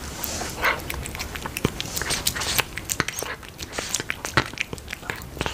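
Cat eating soup with sausage from a small ceramic bowl: a quick, irregular run of wet chewing and lapping clicks.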